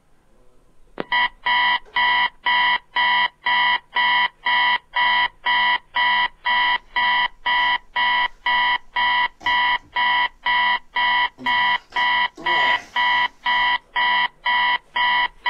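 Electronic alarm clock going off: a steady run of identical high-pitched beeps, about two and a half a second, starting about a second in.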